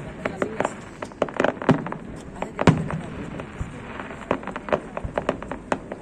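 Fireworks going off in an irregular string of bangs and crackles, with the loudest bang about two and a half seconds in.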